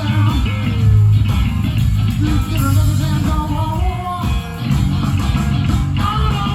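A blues-rock band playing a cover song: electric guitar with bent notes over bass guitar and drums.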